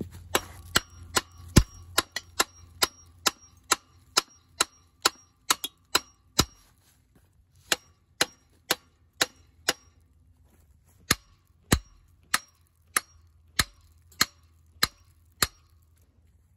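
Repeated metal-on-metal blows on a Wisconsin V4 engine's finned cylinder head, two to three a second with a brief ring after each, pausing twice. The strikes are an attempt to knock loose a stuck head whose bolts are stripped.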